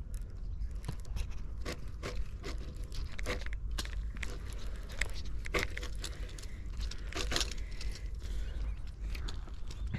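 Footsteps crunching and scraping over rough ground, irregular steps.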